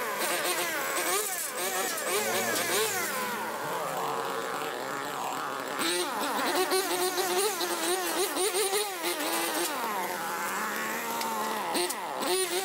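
Handheld two-stroke brush cutters running, their engine pitch rising and falling as the blades bite into dense grass.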